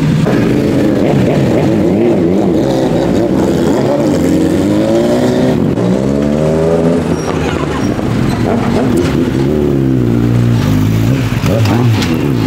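Several sport motorcycle engines idling and being revved, their pitch rising and falling again and again.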